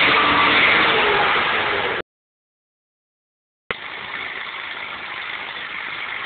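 BMW E39 engine running with its exhaust line removed, a loud, harsh open-exhaust sound. It breaks off about two seconds in and comes back quieter near four seconds.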